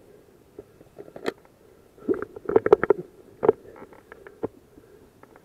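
Handling noise from an airsoft player moving through long grass: rustling, scraping and sharp knocks of the rifle and gear against the camera mount. The knocks bunch together about two to three and a half seconds in, with a few single ones before and after.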